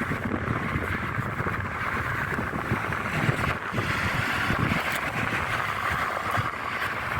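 Steady rolling rumble and hiss of a passing train, with wind buffeting the microphone.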